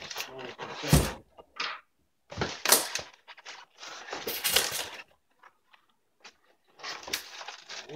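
Polystyrene foam shipping box being tipped over and set down on a carpet with a thump about a second in, then foam rubbing and scraping as its lid is handled and worked open.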